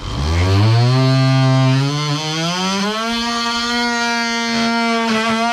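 Cordless oscillating multi-tool running: its motor whine rises as it starts, holds steady, then steps up to a higher, steady pitch about halfway through.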